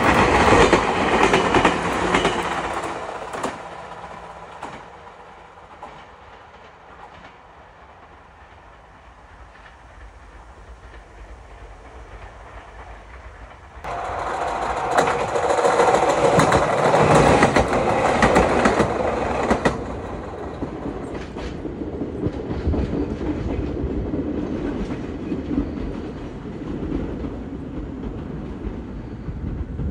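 Red Meitetsu electric trains running on the Bisai Line. A train passes close and fades away over the first few seconds. After a quieter stretch, another train is suddenly heard loud for about six seconds, then the sound settles to a steadier, lower level.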